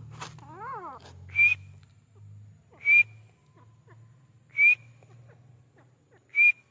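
Grey francolin giving short, sharp, high whistled notes, each slightly rising, four times at about one-and-a-half to two-second intervals. Near the start there is a brief wavering call, and a low steady hum runs underneath.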